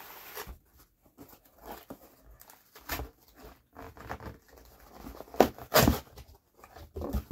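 Handling of an open cardboard pizza box: the lid is folded back and the pizza is reached into, giving irregular rustles, creaks and taps, with a pair of louder knocks a little past the middle.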